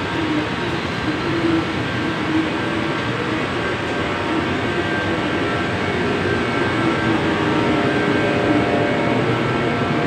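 Heavy rain pouring down, a steady loud rushing noise with a faint constant hum underneath.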